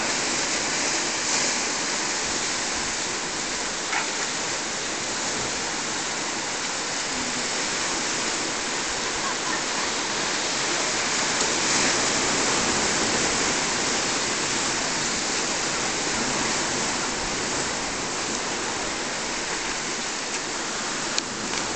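Rough sea surf on a rocky shore: a steady hissing rush of water that swells slightly about halfway through, without clear gaps between the waves. A single short click comes near the end.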